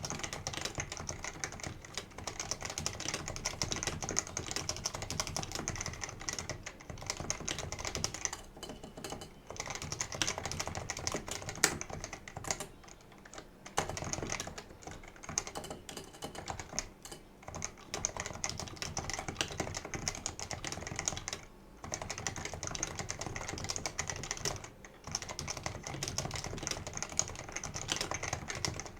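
Fast, continuous typing on a Leopold 660C keyboard with non-lubed Topre electrostatic-capacitive rubber-dome switches: rapid keystroke clacks broken by a few short pauses.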